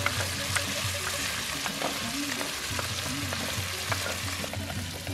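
Oily stew sizzling in a pot over a wood fire as blended garden eggs are scraped into it from a grinding bowl, with a scatter of small scraping clicks over the steady hiss.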